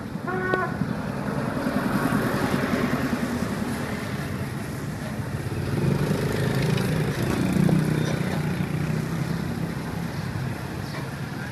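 Street traffic: motorbike engines passing close by, swelling and fading twice over a steady hum of street noise.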